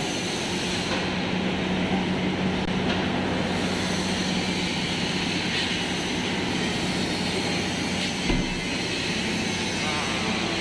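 Steady drone of running palm oil mill machinery: a low hum under a broad, even rushing noise, with one short thump about eight seconds in.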